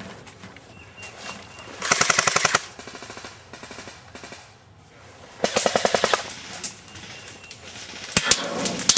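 Airsoft electric guns firing full-auto, two short bursts of rapid, evenly spaced shots about two seconds in and again about five and a half seconds in, followed by two sharp single snaps near the end.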